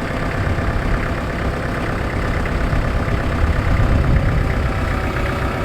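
An engine idling steadily, with a dense low rumble.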